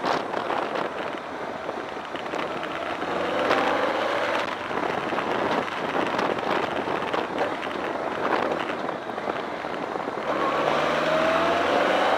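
On-board sound of a BMW K1200R Sport's inline-four engine ridden on wet roads, under a steady rush of wind and tyre noise. The engine note rises as it accelerates about three seconds in, and again near the end.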